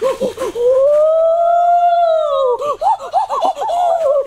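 A high-pitched human voice, a long drawn-out call that rises and falls, then a quick run of short laugh-like syllables in the second half.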